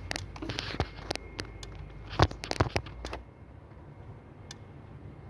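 1998 Jeep Cherokee fuel injectors clicking irregularly while being fired by a scan-tool actuation test, the clicks bunched in the first three seconds and only an odd one after. The uneven clicking goes with injectors No. 1 and 3 not working normally after the PCM repair.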